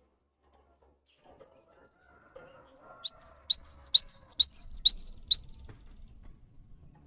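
Cinereous tit (gelatik batu) singing a fast, high, repeated two-note phrase, each an upward sweep followed by a higher note, about six times in just over two seconds, starting about three seconds in.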